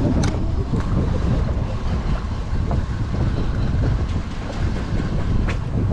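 Steady low rumble of wind buffeting the microphone and a small boat running on the open sea, with a few sharp ticks.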